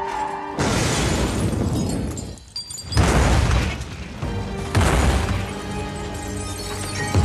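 Background music with three sudden explosion booms, about half a second in, about three seconds in and near five seconds; the later two are the loudest.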